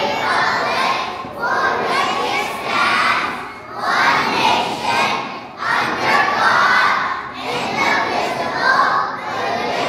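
Many young children's voices shouting together in loud surges, with short breaks every second or two.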